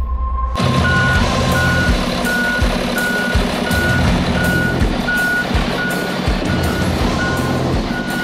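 A truck's reversing alarm beeping steadily, nearly two high beeps a second, over the truck's running engine. A snatch of music cuts off about half a second in.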